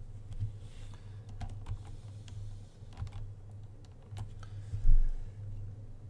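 Scattered clicks of a computer mouse and keyboard over a steady low hum, with one dull thump about five seconds in.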